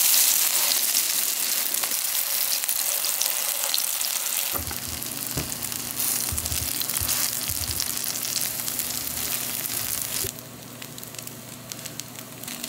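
Kimchi pancakes sizzling in hot oil in a frying pan, with a spatula scraping and tapping against the pan. A steady low hum comes in about four seconds in, and the sizzling drops away sharply near the end.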